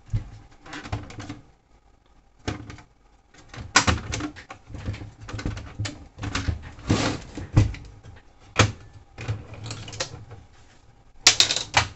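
Irregular clicks, knocks and scrapes of plastic and sheet-metal parts as a disassembled VHS video recorder is handled and taken apart, with the sharpest knocks about four, seven and eleven seconds in.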